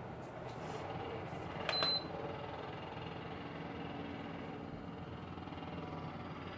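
Construction machinery running outside in a steady mechanical rumble, with one sharp metallic clank and a brief high squeal a little under two seconds in.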